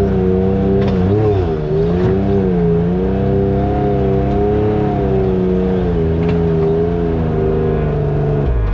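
Side-by-side UTV engine running at low, steady revs as it crawls along a rocky dirt trail, the pitch wavering with throttle changes about a second in and dropping as it eases off near the end. A few light knocks as the machine goes over the ground.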